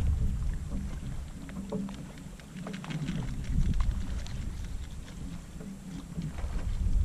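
Water lapping against the hull of a small fishing boat, with a low, uneven wind rumble on the microphone and a few faint ticks.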